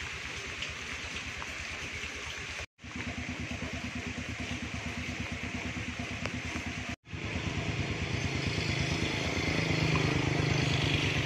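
Motorcycle engine running with a steady low pulsing, growing louder over the last few seconds, over a steady hiss. The sound drops out briefly twice.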